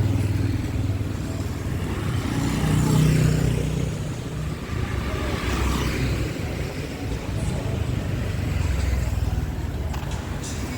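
Busy street traffic of motorbikes and cars running past, a steady engine rumble that swells as a louder vehicle passes about three seconds in.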